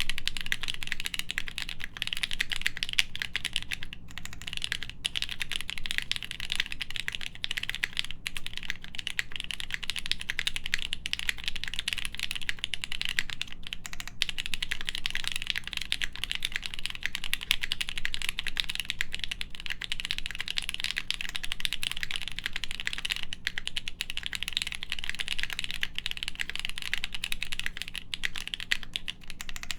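Continuous fast typing on a plateless Studio Kestra Nue mechanical keyboard with Krytox 205g0-lubed H1 switches and GMK doubleshot keycaps. The keystrokes come densely and evenly with no pauses, and the keys give a soft, muted clack.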